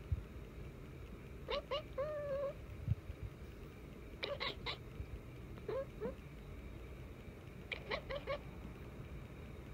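Tortoiseshell cat chirping in four bursts of quick, short calls spaced about two seconds apart, the first ending in a drawn-out wavering note. These are the excited chirps of a cat fixed on something outside the window. Two low thumps come, one right at the start and one about three seconds in.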